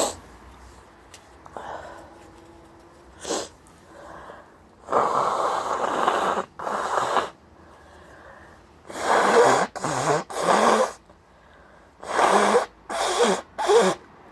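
A person sneezing over and over from hay fever: a run of loud sneezes that come in three quick groups, two or three at a time.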